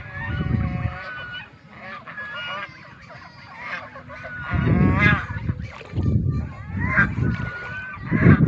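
Waterfowl honking repeatedly in short pitched calls, with bursts of low rumbling noise in between.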